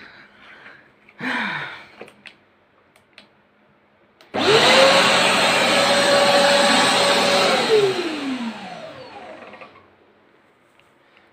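A few light knocks and clicks, then a vacuum motor switched on about four seconds in, running with a steady whine for about three seconds before it is switched off and winds down, its whine falling in pitch.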